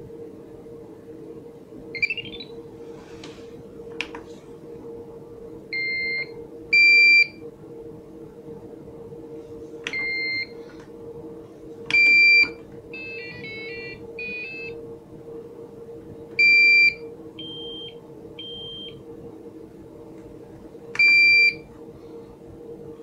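Buzzer of an Arduino Simon Says game playing single electronic beeps at a few different pitches, each about half a second long, spaced several seconds apart. A rising chirp comes near the start and a quick run of short notes about halfway through, over a steady low hum.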